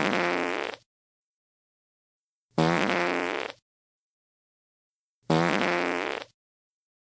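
Fart sound effect: the same pitched, buzzing fart of about one second played three times, roughly every two and three-quarter seconds, with dead silence between.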